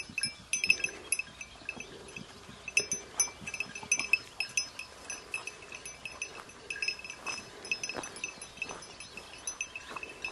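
Small bells on the collars of hunting dogs, jingling in quick, irregular clinks as the dogs move through the scrub.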